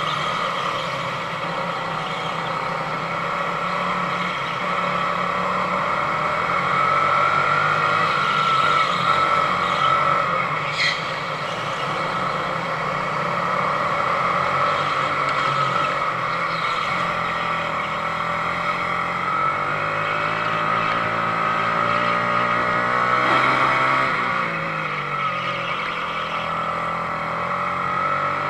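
Sodi RX250 rental kart engine heard from the onboard camera, its pitch rising and falling as the kart speeds up and slows through the corners.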